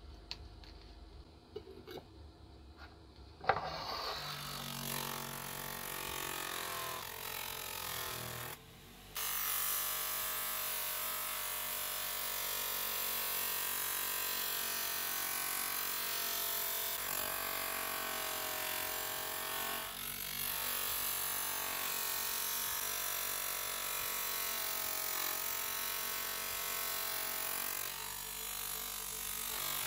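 Bench-mounted motor with an abrasive wheel starting with a sharp click about three and a half seconds in, its pitch rising as it spins up, then running steadily while the revolver's metal frame and long barrel are polished against the wheel, the tone wavering as the part is pressed and moved.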